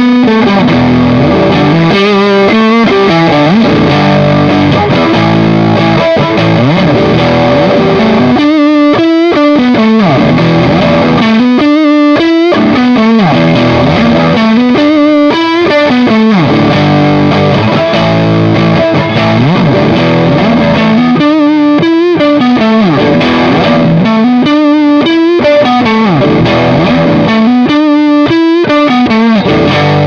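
Distorted electric guitar played through a Tech 21 Double Drive overdrive pedal, which gives the sound of a cranked, EL84-powered Vox AC30. It plays a riff that repeats every few seconds.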